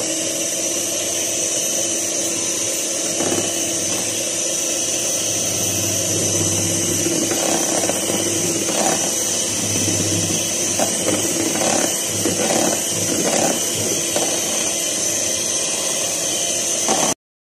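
Electric hand mixer running steadily with a constant whine, its beaters whisking egg whites and sugar in a plastic bowl as the egg yolks are added. It cuts off suddenly near the end.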